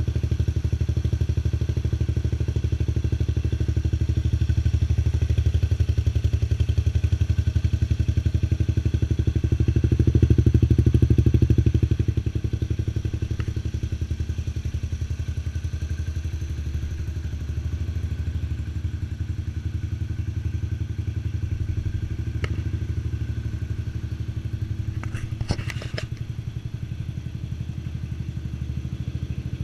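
Yamaha Grand Majesty 250 scooter's single-cylinder four-stroke engine idling through a custom six-outlet stainless exhaust, a steady low pulsing exhaust note that is louder for a stretch in the first half. A few sharp clicks come near the end.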